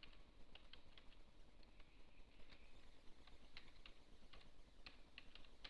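Faint, irregular key clicks of a computer keyboard as text is typed.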